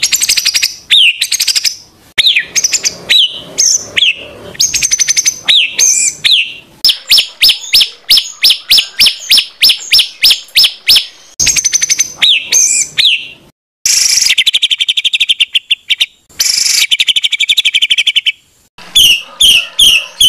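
Loud songbird song of harsh, rapid phrases. It opens with whistled notes sliding down in pitch, then a fast run of about six sharp notes a second, then buzzy rattling trills after a brief pause.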